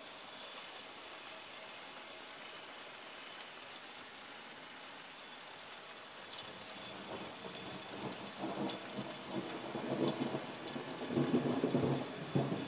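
Steady rain hiss with scattered drips, then a roll of thunder building about halfway through and rumbling loudest near the end.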